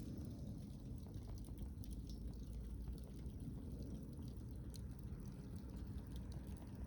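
Wood campfire burning in a Coleman Fire Disk Solo fire pit, with scattered crackles and pops over a steady low rumble.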